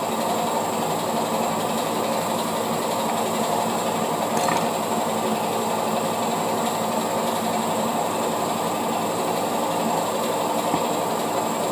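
A steady, loud mechanical rumbling noise with no pauses, with a faint click about four and a half seconds in.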